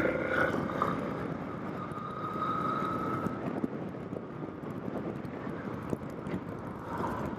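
Motorcycle riding on a paved road: the engine runs under a steady haze of wind and road noise.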